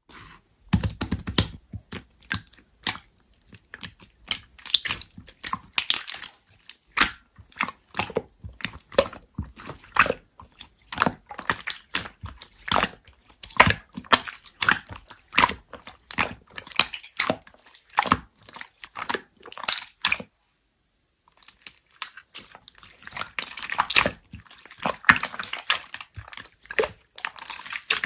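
Slime being squished and pressed by hand: a fast, uneven run of sticky pops and clicks. It stops for about a second two-thirds of the way through, then comes back as a denser, noisier run.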